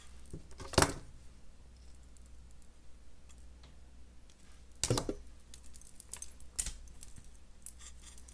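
Small clicks and taps of jewelry pliers on a metal jump ring and copper chain as the ring is worked closed. There is a sharp click about a second in, another near five seconds, and a few lighter ticks.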